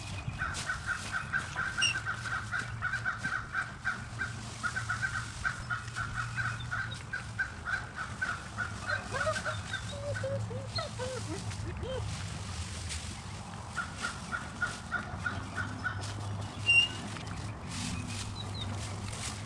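Poultry calling: a fast, pulsing call that runs for several seconds, stops, and comes back briefly later. Short falling chirps come in the middle. A low steady hum runs underneath.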